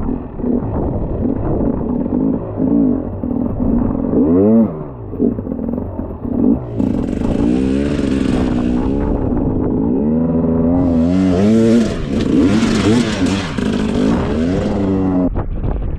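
Enduro motorcycle engine revving up and down over and over as the bike is ridden, with clattering. A loud hiss sits over it from about seven to nine seconds in, and again from about eleven seconds until just before the end.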